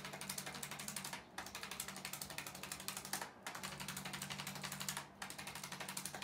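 ArthroStim electric chiropractic adjusting instrument tapping rapidly on the sacrum, a fast even train of clicks over a steady hum. It runs in bursts of about two seconds with brief pauses between.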